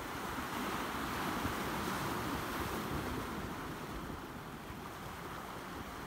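Small sea waves washing in over boulders at a rocky shoreline and foaming back out: a steady rush of surf that swells about a second in and eases off toward the end.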